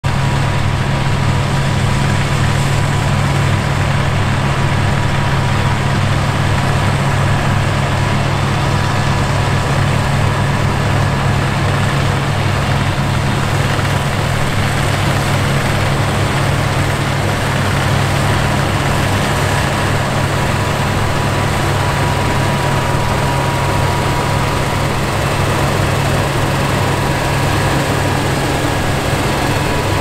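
Fendt Ideal 10T combine's 790 hp engine and threshing machinery running steadily under load while harvesting wheat, a deep drone with a thin steady whine above it.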